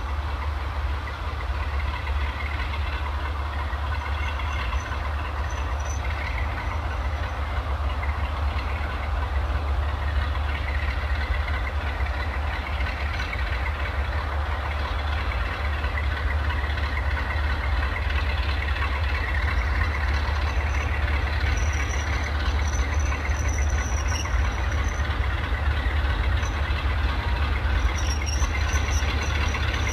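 British Rail Class 46 diesel locomotive 46 034, its Sulzer 12LDA28 twelve-cylinder engine running with a steady low hum, working a 40-wagon freight train whose wagon brakes are pinned down for a steep descent. The rumble of the train grows slowly louder, with a faint high squeal now and then.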